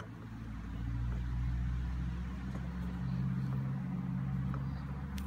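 Low, steady engine hum with a few held low tones, growing louder over the first second and then holding level.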